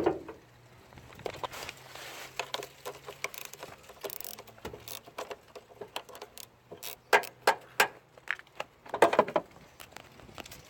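Scattered light clicks and knocks of small hard parts being handled, some clustered in quick runs, over a faint steady low hum.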